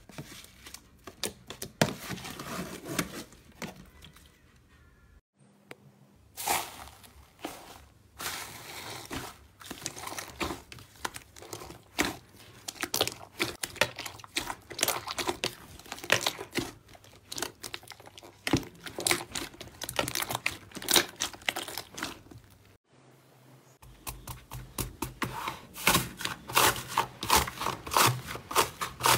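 Hands squeezing, stretching and pressing slime, giving dense, irregular sticky crackling, popping and tearing sounds. Brief breaks about 5 and 23 seconds in.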